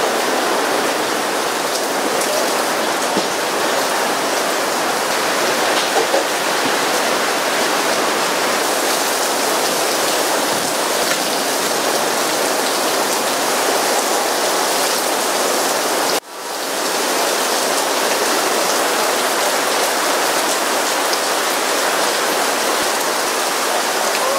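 Heavy rain pouring down in a steady, loud hiss, broken for a moment about two-thirds of the way through.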